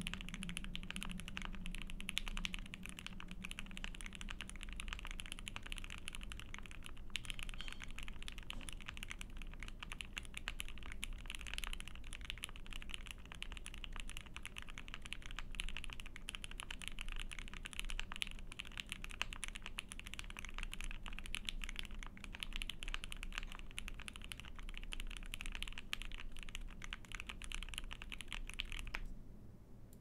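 Continuous typing on an Ai03 Vega mechanical keyboard with a POM plate, lubed Dogikon linear switches and GMK keycaps: a dense, unbroken stream of keystrokes that stops near the end.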